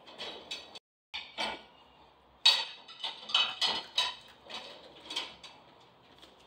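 A quick run of irregular clicks and light clatters, the loudest about two and a half seconds in. The sound cuts out completely for a moment near the one-second mark.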